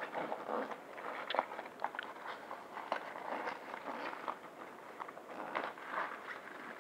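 Nylon backpack being handled: fabric rustling with irregular small clicks and taps from its zipper pulls and buckles as a pocket is opened.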